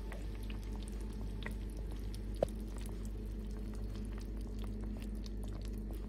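Braised chicken simmering in its sauce in a stainless steel pot: small irregular pops and crackles of bubbling liquid over a steady low hum, with one sharper click about two and a half seconds in.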